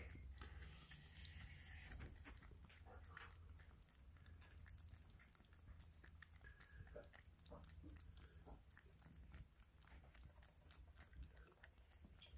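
Two kittens eating wet food: faint, irregular chewing and licking clicks over a low steady hum.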